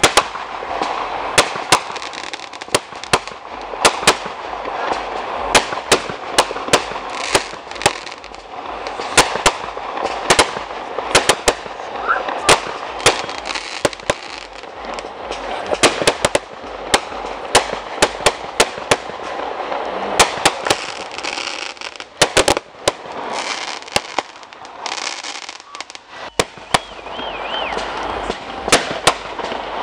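Aerial fireworks going off in a rapid series: many sharp bangs of shells bursting, often several a second, over a continuous crackle, with a short quieter stretch late on.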